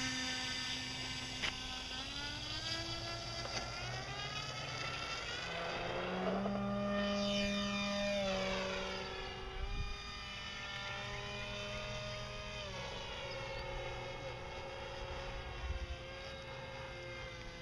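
RC airplane's Power 25 brushless electric motor and propeller whining, the pitch stepping up and down with throttle changes. Around the middle the whine sweeps sharply down in pitch as the plane passes by.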